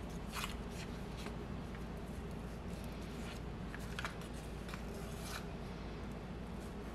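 Light scrapes and taps of a spoon spreading cream cheese filling onto puff pastry squares on a wooden cutting board, a few scattered small clicks over a steady low hum.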